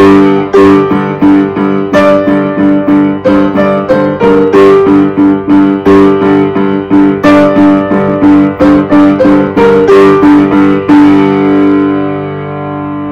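Grand piano played by hand: a steady run of struck chords under a melody, ending on a final chord about eleven seconds in that rings out and fades.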